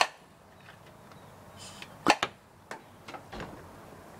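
Sharp snaps and knocks of a toy paintball bow being shot and its paint balls hitting. One comes right at the start, and the loudest is a quick double crack about two seconds in, followed by a couple of smaller knocks.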